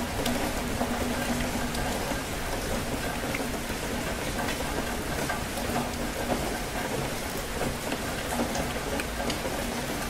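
Rainstorm: steady rain falling, with scattered sharp drop ticks among the even patter.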